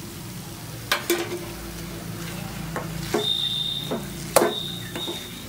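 A metal spoon stirring thick bread halwa with fried cashews and raisins in an aluminium pan, the spoon knocking against the pan about a second in, just after three seconds and again past four seconds. A steady low hum runs underneath, and a thin high steady tone comes in about three seconds in.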